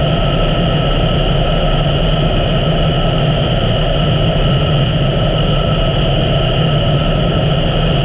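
2017 Honda Africa Twin's parallel-twin engine running steadily while the motorcycle cruises, with road noise and no change in pace.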